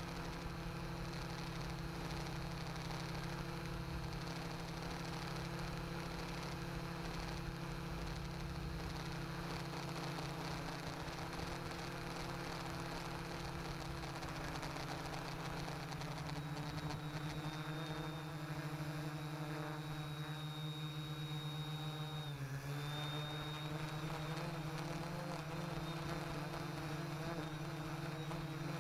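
Quadcopter's electric motors and propellers buzzing steadily in flight, picked up by a camera mounted on the frame. The pitch dips briefly about three-quarters of the way through, then comes back up as the motors change speed.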